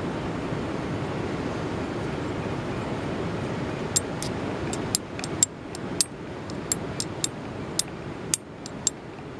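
Viking-style steel striker struck against flint to throw sparks onto charred cord: about a dozen and a half sharp clicks, roughly three a second, starting about four seconds in, over a steady background rush.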